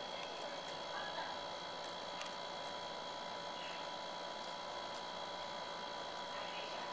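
Steady background hum and hiss with a few faint, short clicks.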